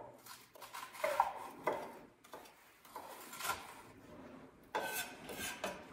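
Chef's knives dicing onion on wooden cutting boards: an irregular run of short knife strokes knocking on the wood, roughly one a second.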